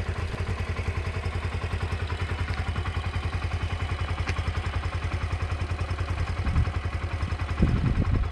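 Yamaha YBR125's single-cylinder four-stroke engine idling steadily, a fast even run of low pulses. Near the end some louder low rumbles break in over it.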